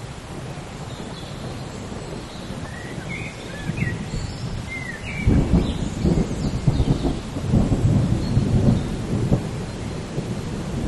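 Steady rain with thunder rumbling, swelling to a heavy low rumble about five seconds in and easing off some four seconds later.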